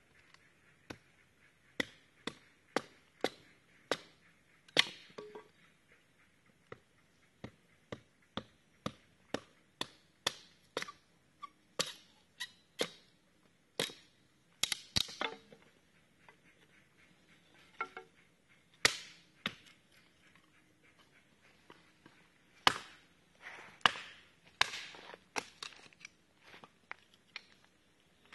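Small hatchet chopping and splitting dry sticks: a series of sharp chops, steady at about two a second for the first ten seconds, then coming in irregular groups with short pauses.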